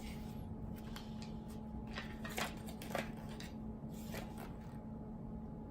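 Hands handling small toy packaging and paper: faint scattered rustles and light clicks, two slightly louder about two and a half and three seconds in, over a steady low hum.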